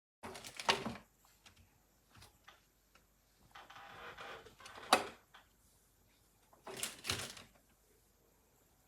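Scattered knocks and clicks, with a stretch of rustling just before a sharp click about five seconds in, in a small room.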